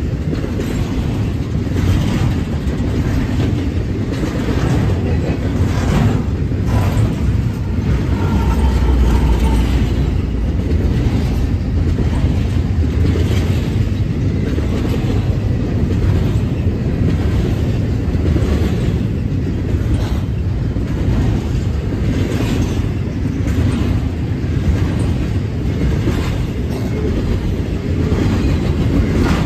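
Double-stack intermodal freight train rolling past: a steady low rumble of steel wheels on rail, with irregular clicks and knocks as the cars' wheelsets run over the track.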